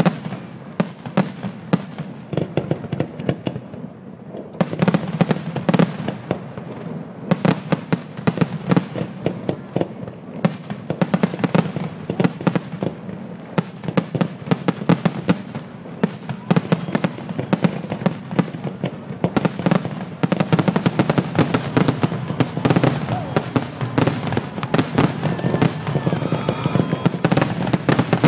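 Fireworks grand finale: aerial shells bursting in rapid succession, a dense run of sharp bangs and booms that grows even thicker about two-thirds of the way in.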